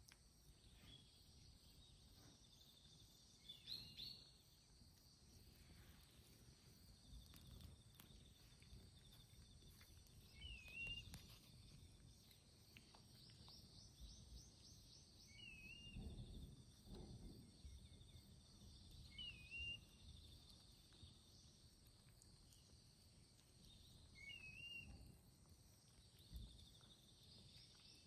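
Small songbird giving a short, rising-and-falling whistled call, repeated four times a few seconds apart, over a faint steady insect trill and low rustling.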